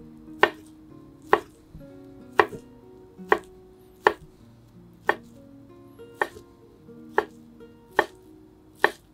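A kitchen knife slicing a thin egg crepe into fine strips on a cutting board, the blade knocking the board about once a second, ten cuts in all. Soft background music with plucked notes plays under the cuts.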